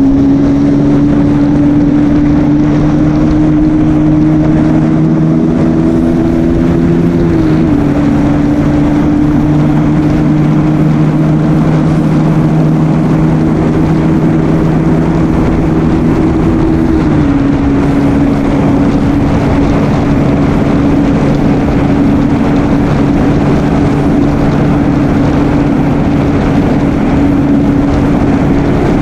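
KTM Duke 200's single-cylinder engine running loud at steady revs. Its note steps down slightly about seven seconds in and again a little past halfway.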